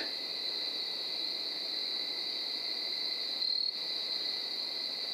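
Steady night-time chorus of crickets, a continuous high-pitched ringing.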